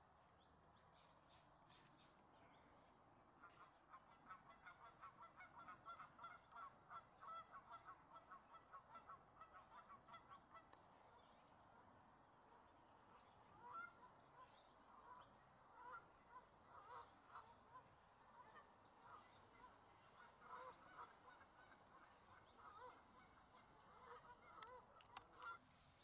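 Faint goose honking. A fast, regular run of honks lasts several seconds, then scattered honks follow.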